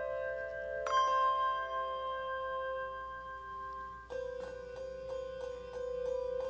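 Film score music with sustained ringing notes. A chord is struck about a second in, and from about four seconds in a quick run of repeated struck notes comes at about three a second.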